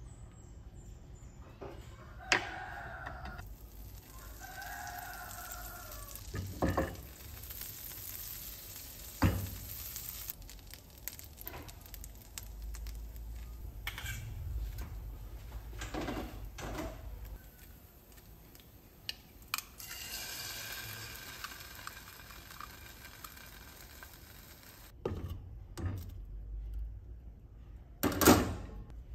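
Bread frying in a nonstick frying pan with a light sizzle, with a spatula knocking and scraping against the pan and utensils clattering now and then. Two short squeaky tones come a few seconds in.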